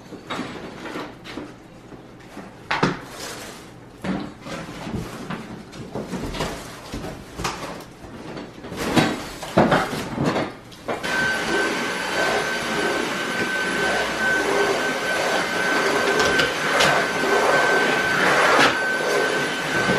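Cardboard boxes being handled, with scattered knocks and rustles. About halfway through, a cordless stick vacuum runs steadily with a high whine.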